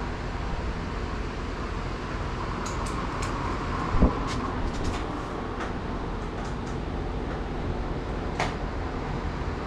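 Steady background hum with scattered light clicks and one louder knock about four seconds in, from hand work on a bare metal vehicle chassis during disassembly.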